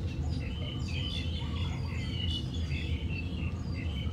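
Small birds chirping in many short, scattered calls over a steady low rumble.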